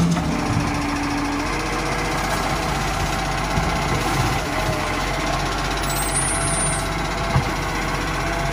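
Side-loading garbage truck's engine running steadily while its hydraulic lifting arm works, emptying a wheelie bin into the hopper and then gripping and lifting the next bin. A sharp bang comes right at the start, and a short knock about seven seconds in.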